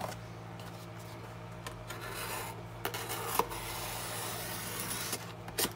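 A pen-style craft knife being run along the packing tape on a cardboard box's seam, a soft steady rasping scrape with a few small clicks and a sharper one near the end.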